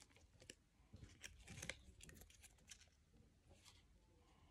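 Faint crinkling of a plastic slime packet as it is squeezed and handled, with a few scattered soft clicks.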